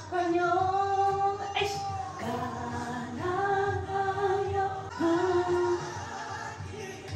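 Background music: a slow song with a female voice holding long sung notes over a soft accompaniment.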